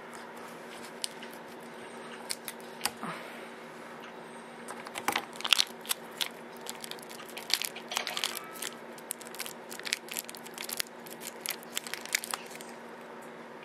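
Foil and plastic wrapping of a removed lithium-ion tablet battery crinkling and crackling as it is handled. Scattered crackles at first, then a dense run of sharp irregular crackles from about midway until just before the end.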